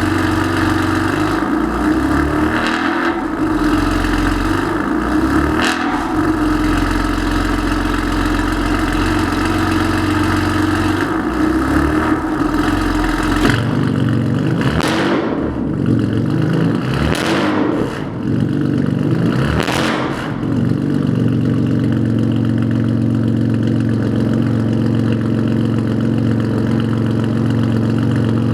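BMW S55 3.0-litre twin-turbo straight-six running through an aftermarket exhaust: idling steadily, then revved in three short blips about halfway through, and settling back to idle.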